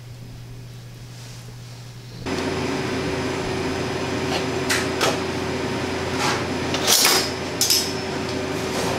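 Kitchen room sound: a low steady hum, then from about two seconds in a louder steady hum and hiss with a few sharp knocks and clicks scattered through the second half.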